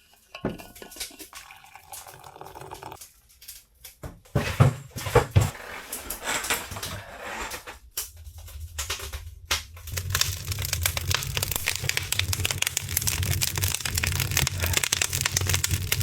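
Freshly lit wood fire in a Northwoods Fabrication tent stove, with scattered crackles and pops at first. About ten seconds in it takes hold into dense, fast crackling over a steady low rumble of draft.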